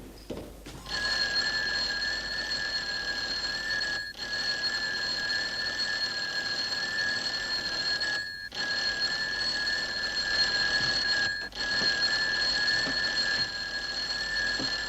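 Electric doorbell held down, ringing steadily and insistently. It starts about a second in and is broken off briefly three times.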